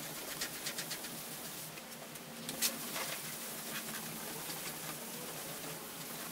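Cloth rag rubbing polishing compound into a surfboard's wet-sanded epoxy surface by hand, compounding the repair to bring back its shine: faint scratchy swishes in quick strokes, with one louder scrape about two and a half seconds in.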